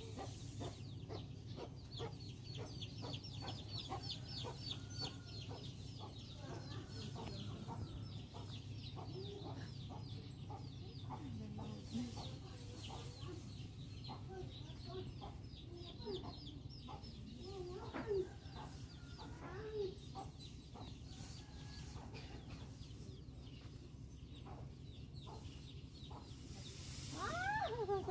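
Chickens clucking over a steady low hum, with a rising cry near the end.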